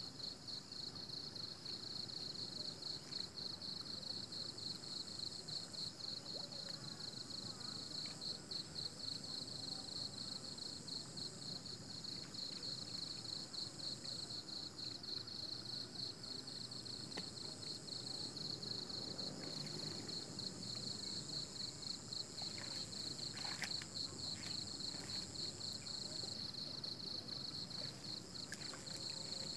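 Chorus of insects, crickets or similar, chirring steadily in a fast pulsing trill, with a second, higher steady insect tone above it. A few faint clicks or rustles come in the last third.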